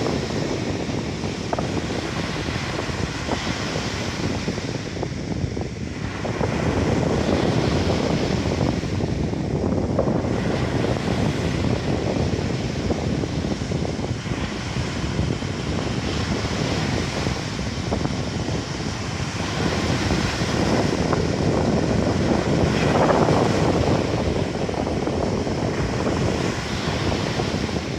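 Waves of the Sea of Azov washing onto the beach, mixed with wind buffeting the microphone; the rushing swells and eases every several seconds.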